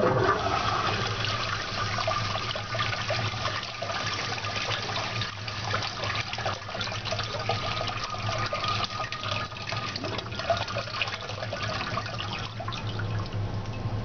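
INAX toilet flushing: water rushing and swirling round the bowl, steady throughout.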